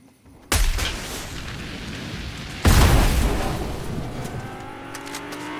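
Video game explosions: two sudden loud booms about two seconds apart, the second the louder, each followed by a long low rumble that slowly fades, with a faint rising tone near the end.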